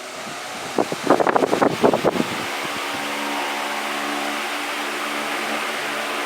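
Vitalex Turbolex 60 cm 200 W wall fan getting up to speed, its air noise growing louder, then running steadily with a motor hum. About a second in comes a short burst of rattling.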